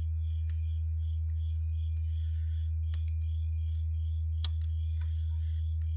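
Steady 80 Hz test tone played on repeat through a Kicker Solo-Baric 10-inch subwoofer, holding one constant low pitch, with a few faint clicks. It is the reference signal used to set the amplifier's low-pass crossover at 80 Hz.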